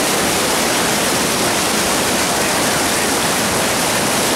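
Creek water rushing over rocks and a small waterfall: a loud, steady rush of white water.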